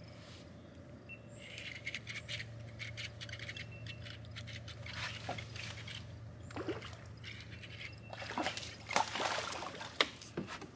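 A hooked panfish splashing at the water's surface as it is reeled up to the boat, with clicks and rustles of handling; the loudest splashes come about halfway through and again near the end. A low steady hum runs underneath.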